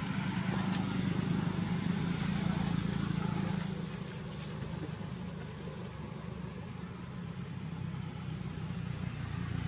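Low steady rumble of a motor vehicle engine, swelling over the first few seconds and then easing, with a thin high steady whine above it.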